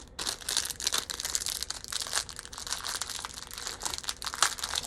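Plastic crinkling and small Lego pieces clicking as hands rummage through parts, with a sharper click about four and a half seconds in.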